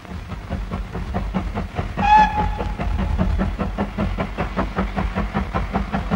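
Steam locomotive pulling a train out of a station, its exhaust beating quickly and evenly at about five chuffs a second. A short steam whistle blast sounds about two seconds in.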